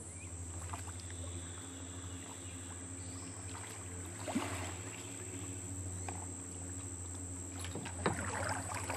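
Kayak paddles dipping and splashing softly in calm water, most clearly about four seconds in and again near the end, over a steady high-pitched insect drone.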